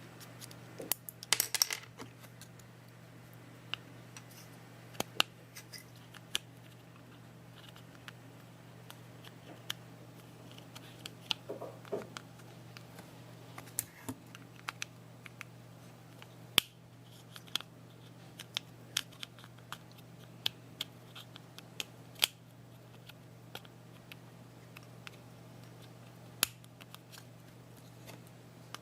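Irregular small plastic clicks, taps and brief rustles from a car alarm key fob being handled and its plastic case snapped back together, over a steady low hum.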